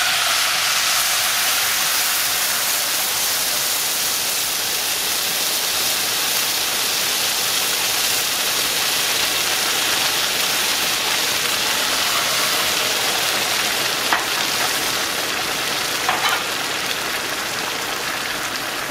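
Water hitting a hot skillet of rice toasted in oil and butter, sizzling and boiling hard in a loud steady hiss that eases slightly over time. A few light knocks come near the end.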